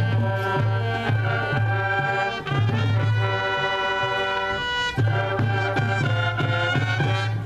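High school marching band playing: brass over a low bass line and a steady drum beat. About three seconds in the drums drop out under a long held brass chord, then come back about two seconds later.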